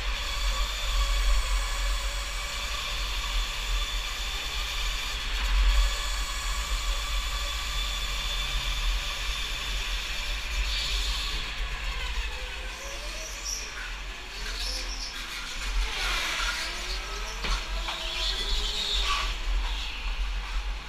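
Onboard sound of an indoor go-kart at speed: its motor runs at a steady high pitch over a low rumble from the track. In the second half it slows into the pit lane, and several motor pitches slide up and down and cross as the other karts slow alongside.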